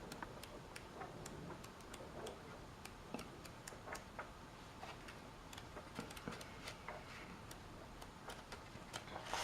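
Pages of a paper guidebook being leafed through by hand: faint, irregular light clicks and taps.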